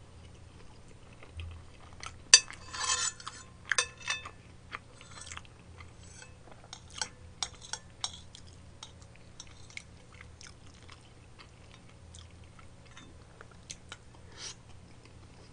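Someone eating curry and rice with a metal spoon from a ceramic bowl: the spoon scrapes and clinks against the bowl, with mouth chewing sounds in between. The clinks are scattered and irregular, busiest a few seconds in.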